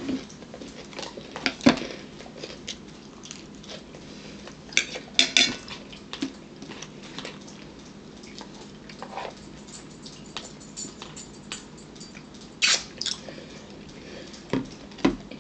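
Tableware clatter at a meal: a spoon or utensils clicking and knocking against a plastic bowl and dishes. The knocks are scattered and irregular, with a few sharper ones standing out, the loudest a couple of seconds in, around five seconds and near thirteen seconds.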